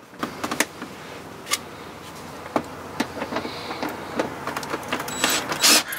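Clicks and knocks of a plastic mud flap being handled and held against the wheel arch. Near the end a DeWalt 20V cordless impact driver briefly runs, driving a screw through the flap into the arch, and this is the loudest sound.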